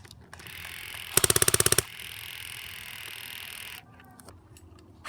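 Airsoft gun firing one short full-auto burst about a second in, a rapid rattle of about twenty shots a second lasting under a second.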